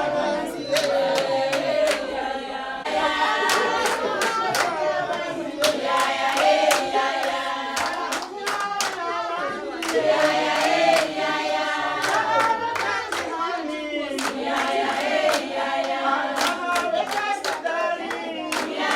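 A group singing together in unison, with steady hand clapping throughout.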